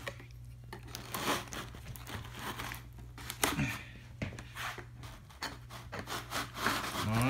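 Clear plastic blister packaging being cut with a knife and handled, giving irregular crackles, crinkles and scrapes.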